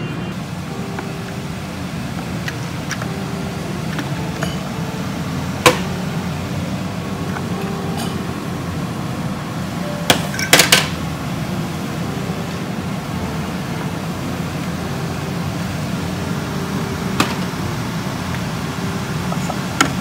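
Electric food steamer running with a steady low hum of boiling water. Over it come several sharp clinks and knocks as glass jars and the steamer's plastic parts are handled, with a cluster of them about halfway through.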